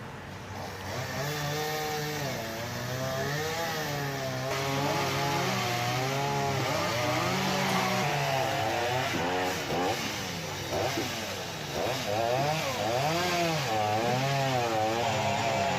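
Chainsaw running, its engine pitch rising and falling again and again as it is throttled, with short dips in between.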